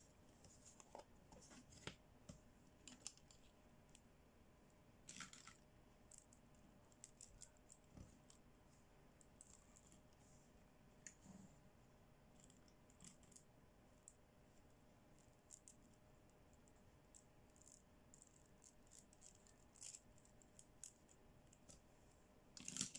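Small pink plastic toy accessories being handled and set down on a table: faint, scattered light clicks and taps, with a louder clatter near the end.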